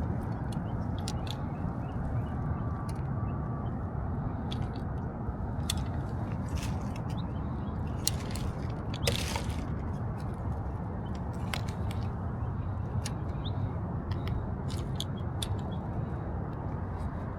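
Scattered crunches and crinkles of litter being picked up and handled, with one louder crunch about nine seconds in, over a steady low rumble.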